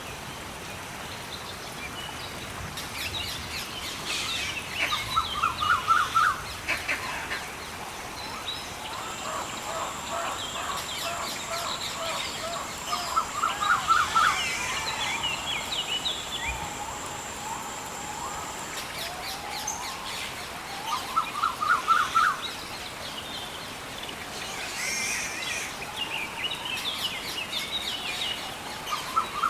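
Rainforest ambience of many birds calling and chirping, one of them repeating a rapid trill of quick notes about every eight seconds. A steady high whine joins in from about nine seconds in and stops near the middle.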